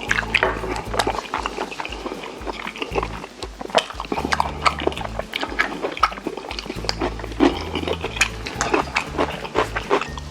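Close-up wet chewing and smacking while eating rose-sauce braised chicken, with many irregular sticky mouth clicks. Low background music plays underneath.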